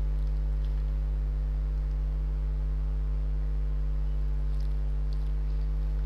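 Steady electrical mains hum: a low, unchanging buzz with a ladder of overtones, picked up through the recording setup. A few faint clicks sound around the middle and near the end.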